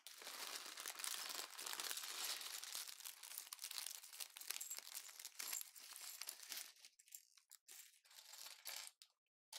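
Thin clear plastic LEGO parts bag crinkling as it is handled and emptied of bricks. The crinkling is continuous for about seven seconds, then comes in shorter bursts and stops near the end.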